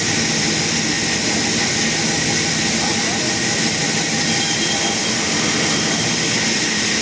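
Sawmill saw and machinery running steadily, a loud even whine and hiss.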